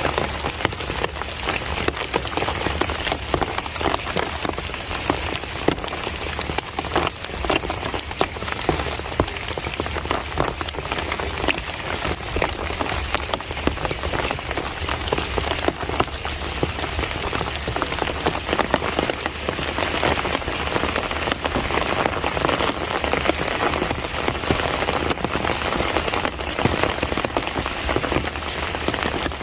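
Heavy monsoon rain falling steadily, a dense patter of many drops striking surfaces.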